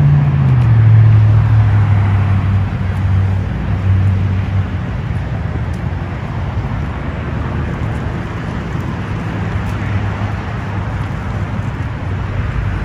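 A motor vehicle's engine hum that drops in pitch about half a second in and fades away within about five seconds, over a steady rumble of road traffic.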